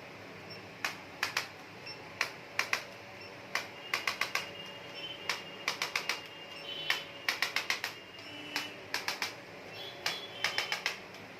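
A run of sharp, short clicks or taps coming irregularly, singly and in quick clusters of three to five.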